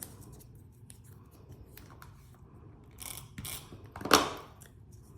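Small paper pieces and craft tools handled on a tabletop: scattered light clicks and taps, a stretch of paper rustling about three seconds in, and a louder short scrape just after four seconds.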